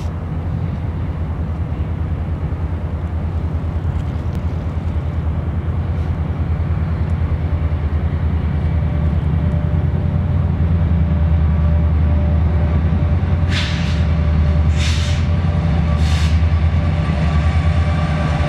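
Diesel locomotive CP 2246 approaching at the head of a train, its engine's low rumble slowly growing louder. Near the end come three short hisses, each a little over a second after the last.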